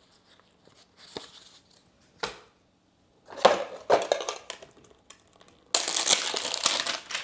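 Plastic packaging of a Pokémon card product crinkling and tearing: a few light clicks at first, then bursts of crinkling, and a louder stretch of ripping and crinkling for about a second and a half near the end.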